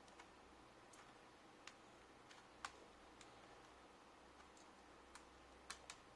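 Near silence with a few faint, scattered clicks and taps from hands working on an open laptop's internals while a flat ribbon cable is being connected.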